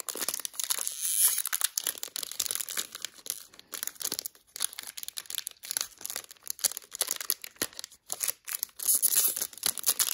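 Foil wrapper of a trading-card pack being torn and crumpled: a dense, uneven crinkling and crackling, with short pauses.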